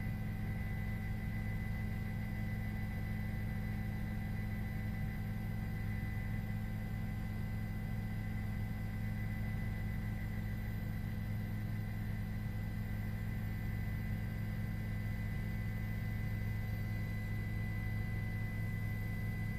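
A steady low hum with faint, thin high-pitched whines above it, unchanging throughout.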